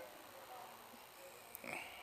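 Near silence: quiet room tone, with one brief faint noise about a second and a half in.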